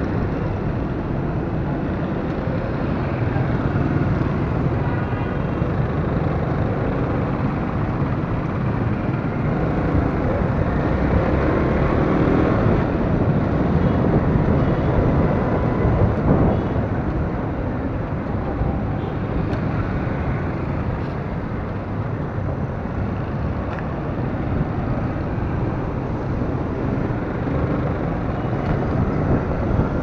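A motorcycle riding through city traffic: its engine runs steadily under constant road noise, with other vehicles passing close by.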